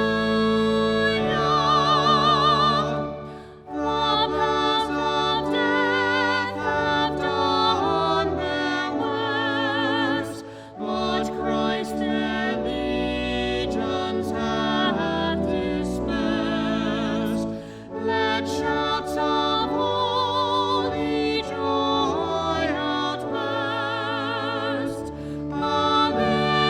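A hymn sung by a voice with wide vibrato over long, sustained accompanying chords, phrase by phrase with brief breaths between phrases.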